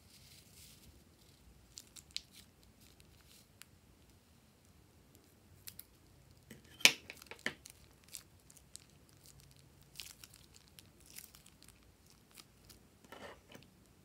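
Thin plastic piping bag crinkling and crackling as it is squeezed and crumpled by hand, loudest in a few sharp crackles about halfway through. Near the end, scissors snip through the plastic of a second piping bag.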